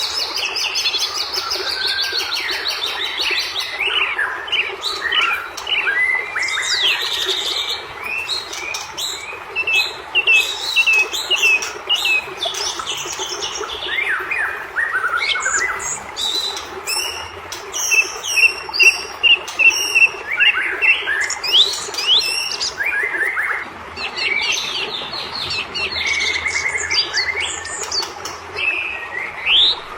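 White-rumped shama (murai batu) singing a fast, unbroken stream of varied whistles, chirps and quick trills, over a steady hiss.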